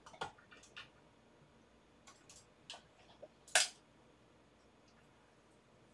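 Metal arms, joints and alligator clips of a third-hand soldering stand clicking and clattering as it is handled and put together. It is a scatter of light clicks, with one louder clack about three and a half seconds in.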